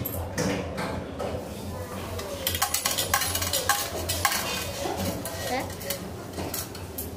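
A quick run of sharp metallic clinks and clicks about two and a half seconds in, over a steady low hum.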